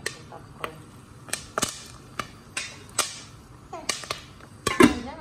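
Popcorn kernels starting to pop in a covered pot on the stove: sharp, irregular pops, roughly two a second. Near the end comes a louder knock with a ringing tail, as the metal lid is moved.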